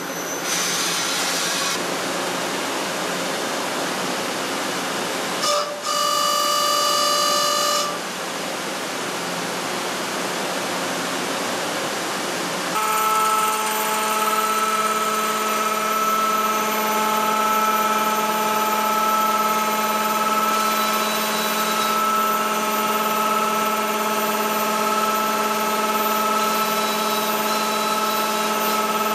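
A Hi-TECH 350B CNC turning center machining SM45C carbon steel. For the first half a boring bar finishes the bore with a steady cutting hiss, broken by a steady whine for about two seconds. Then, about halfway through, a louder steady whine of several fixed tones sets in as the hob cuts the teeth of a spur gear.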